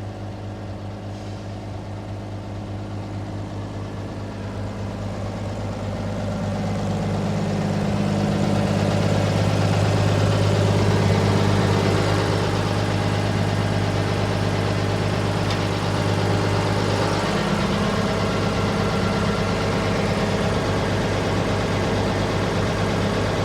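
Backhoe engine running with a steady low hum. It grows louder a few seconds in, stays at its loudest for a few seconds, then eases back a little and runs evenly.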